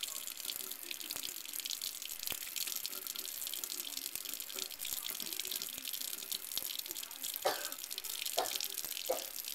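Kitchen faucet running a steady stream of water into a sink, with a few short, sharper sounds near the end.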